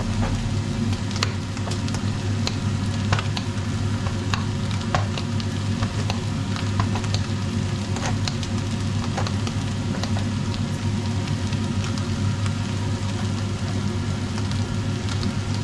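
Ground beef and bacon sizzling and frying in a pot, with scattered crackles and pops over a steady low hum.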